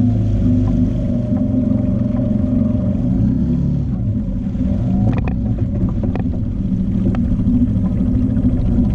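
Small outboard motor running steadily at a constant speed, pushing a square-stern canoe through the water. A few light knocks come through about five to six seconds in.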